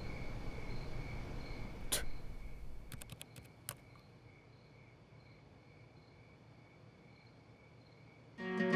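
Crickets chirping steadily over a low background hum, with a sharp click about two seconds in and a few more clicks around three seconds; the ambience then drops to near silence, and acoustic guitar music begins near the end.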